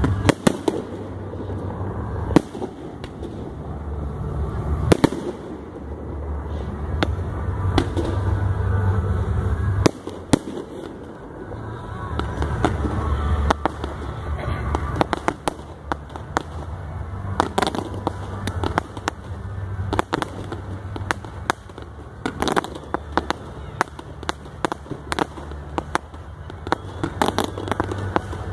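Fireworks display: dozens of sharp bangs and reports at irregular intervals, coming thicker in the second half, over a steady low rumble.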